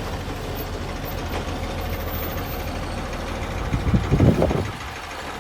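An engine running steadily at idle, with a louder, rougher surge about four seconds in.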